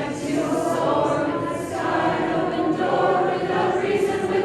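Choir singing in harmony, with held, overlapping voices.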